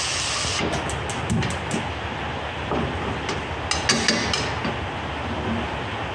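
Minced aromatics (shallot, garlic, lemongrass, chili) sizzling in oil in a frying pan, with a wooden spatula and chopsticks stirring and clicking against the pan in short clusters about a second in and again around four seconds.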